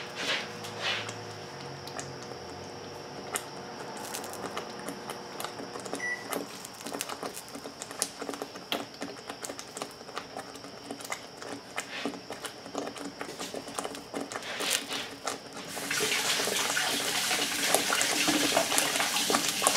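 Thick tomato sauce simmering in a cast-iron skillet, popping and spattering in irregular small pops. About sixteen seconds in, a kitchen tap starts running in a steady hiss, louder than the popping.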